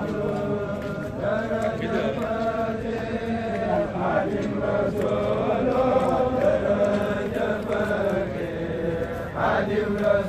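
A crowd of men chanting Arabic devotional verse together, a Mouride xassida. They hold long, drawn-out notes in phrases a few seconds long, with short breaks between them.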